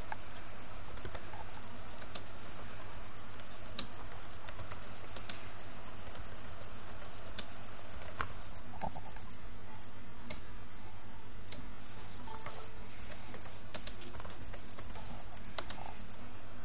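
Computer keyboard being typed on slowly: scattered single key clicks, irregular and a second or two apart, over a steady low hum.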